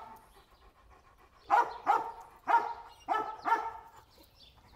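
A dog barking: about five short, sharp barks, coming roughly in pairs, starting about one and a half seconds in.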